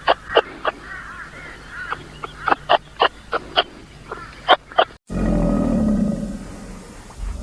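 A run of short, sharp, high animal calls, then, after a cut about five seconds in, a large wild animal's deep, loud roar.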